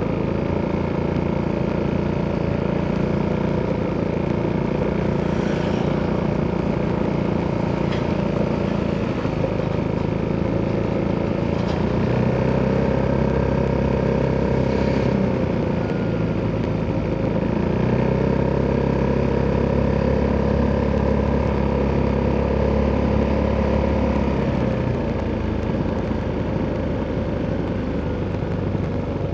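Italjet Dragster 200's single-cylinder DOHC four-stroke engine running through an Akrapovic exhaust while riding at a fairly steady pitch. The exhaust note grows louder for a few seconds midway, and again for a longer stretch later, before easing off near the end.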